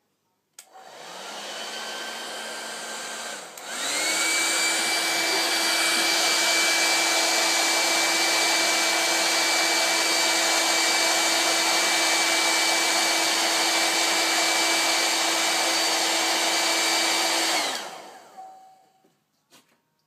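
Hair dryer running, first at a lower speed. It cuts out briefly and spins up again to a higher, louder whine, which holds steady for about fourteen seconds before it is switched off and winds down.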